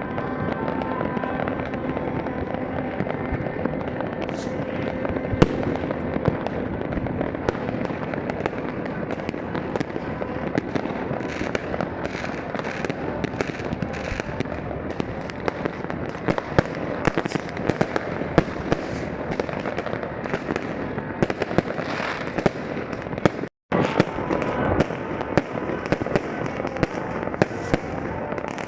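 Many fireworks and firecrackers going off at once: a constant din of bangs and crackling, with the sharp bangs coming more densely in the second half. The sound cuts out for an instant about two-thirds of the way through.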